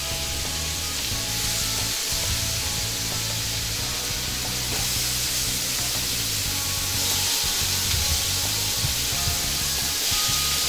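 Raw ground-beef patties sizzling on a hot griddle pan over a gas flame, alongside onions frying in olive oil; the hiss gets louder partway through as more patties go down. Background music plays underneath.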